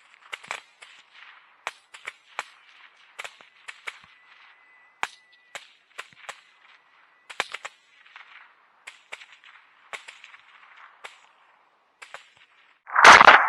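An irregular series of sharp cracks and clicks, a few a second, some coming in quick clusters. A loud, longer burst of sound starts near the end.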